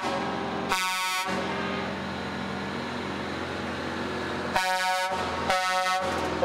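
Semi-truck air horn sounding three short blasts, one about a second in and two close together near the end, over the steady engine drone of a passing semi-truck.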